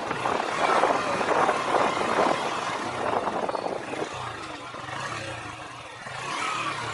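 Motorcycle on the move, its engine faint under heavy wind and road noise; the noise eases off about four seconds in and builds again near the end.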